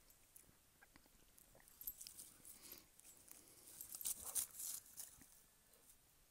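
Faint rustling and crunching of dry grass and fallen leaves under dogs' paws, in scattered small clicks that are busiest about four to five seconds in.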